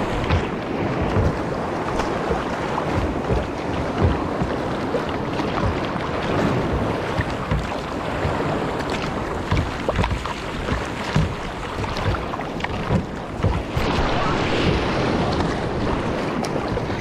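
Choppy sea water splashing and slapping around a sea kayak's hull, with waves breaking on nearby rocks. Wind buffets the microphone in irregular low thumps throughout.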